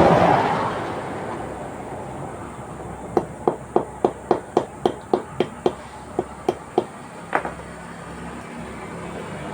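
A passing vehicle fades out in the first second, then a quick run of about fifteen sharp hammer taps, roughly four a second, lasting about four seconds.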